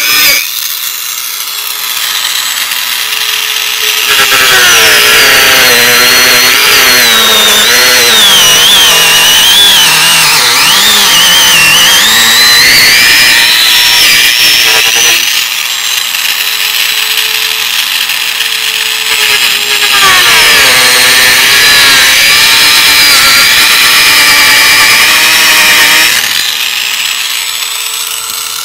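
Dremel rotary tool with a cut-off wheel running at high speed and cutting through the hard plastic cover of a cabin air filter housing. Its whine drops and wavers in pitch as the wheel bites into the plastic, about four seconds in and again about twenty seconds in, and rises back to a steady high pitch when the wheel runs free.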